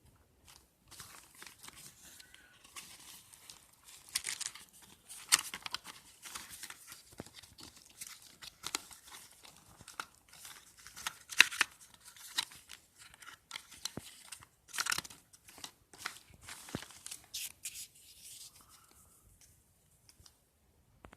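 Packaging being handled and opened by hand: irregular crinkling, rustling and tearing, with sharp crackles, the loudest about five, eleven and fifteen seconds in, fading out near the end.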